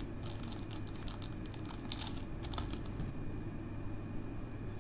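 Handling noise: a quick run of small plastic clicks and taps from fingers working a lavalier microphone and its clip, busy for about three seconds and then sparser, over a steady low hum.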